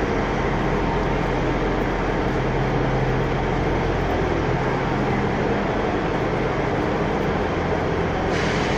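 A GWR diesel multiple unit's engines running steadily at the platform, a low rumble with a constant hum. A hiss starts near the end.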